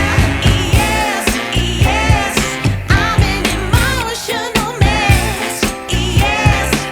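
Pop-soul song with a steady drum beat and a singing voice.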